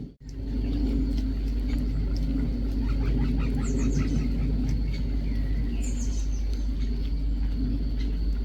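Birds calling: a rapid chattering series about three seconds in and a few high calls around six seconds in, over a steady low rumble.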